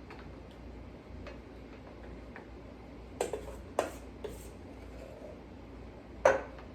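A spoon clicking and tapping against dishes while donut batter is spooned out: a few sharp taps about halfway through and one louder tap near the end.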